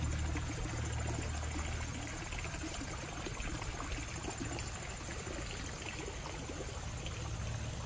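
Water trickling and running into a backyard koi pond, a steady splashing sound.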